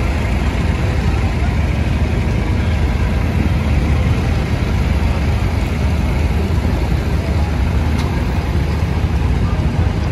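Engines of several vintage farm and garden tractors running steadily at low speed as they drive past one after another.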